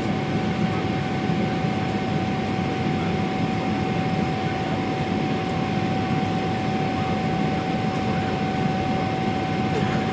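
Boeing 777 airliner cabin noise in flight: a steady jet-engine and airflow rumble with a steady whine over it.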